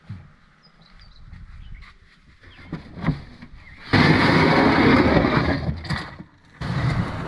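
Square-stern aluminum canoe hull scraping over grass and mud as it is shoved off the bank, a long loud rasping scrape starting about four seconds in and a second one starting near the end, after a few light knocks.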